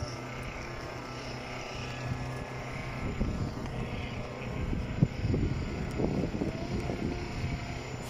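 A steady mechanical hum, like a small motor or engine running, with uneven low rumbling joining in from about three seconds in and a sharp knock about five seconds in.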